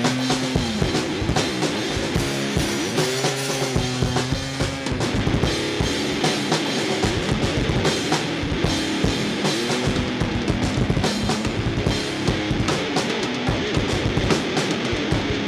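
A rock band playing an instrumental passage: a drum kit with kick and snare keeps a steady beat under pitched guitar lines.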